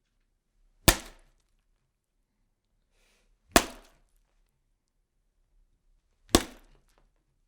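Three sharp, loud impact hits, evenly spaced about two and a half seconds apart, each dying away with a short ringing tail, with silence between them.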